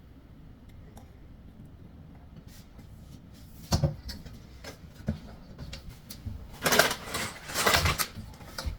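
A few light knocks, then a plastic snack bag crinkling and rustling as it is handled during the last two seconds or so.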